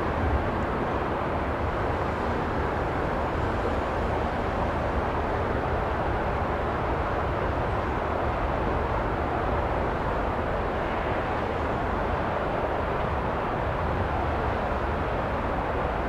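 Steady rumbling vehicle noise outdoors, even in level throughout, with no distinct passes, horns or clanks.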